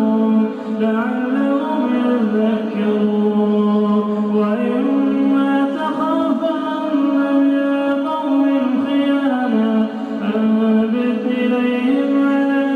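A man's voice in melodic Quran recitation, chanting in long held notes that step up and down in pitch, with only brief pauses for breath.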